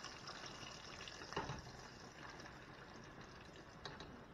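Breaded chicken strips frying in hot oil in a pot: a faint, steady sizzle, with a light knock about a second and a half in.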